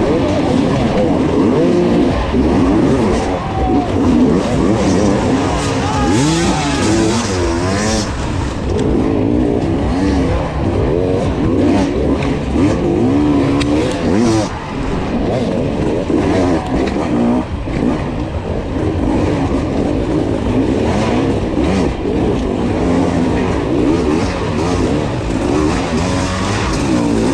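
Enduro dirt bike engine being ridden hard, revving up and down continuously as the throttle is worked, its pitch constantly rising and falling.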